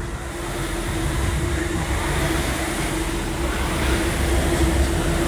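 Air rowing machine's flywheel fan whirring under hard strokes, with a steady hum running through it. It gets louder over the first few seconds as the flywheel spins up at the start of the piece.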